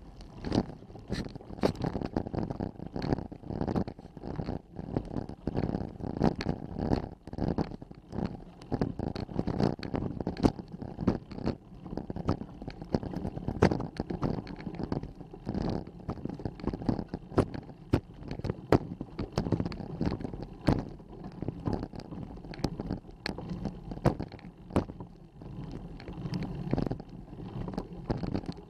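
Rattling and knocking from a bike-mounted camera as the mountain bike moves slowly up a paved road: many irregular sharp clicks and knocks over a low rumble.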